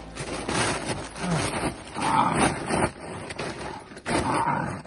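Plastic tarp crinkling and rustling under a Dutch Shepherd puppy as it tugs on a bite pillow in protection bite work, with dog growling mixed in.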